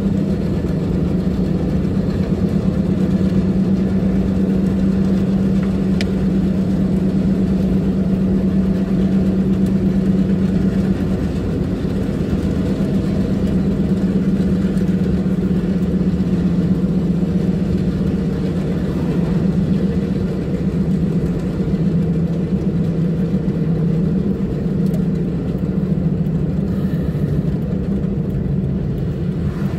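A car's engine and road noise droning steadily inside the cabin at road speed, with a strong low hum that dips slightly in pitch about three-quarters through.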